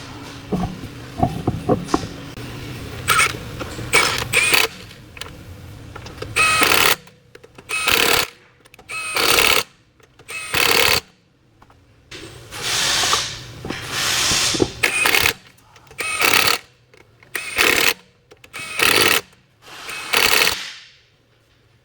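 A power tool run in about ten short bursts, each half a second to a second and a half long, after a few seconds of scattered clicks and knocks of handling.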